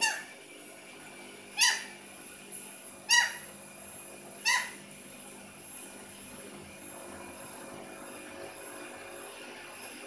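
Pyrrhura conure giving four short calls about a second and a half apart, each dropping in pitch.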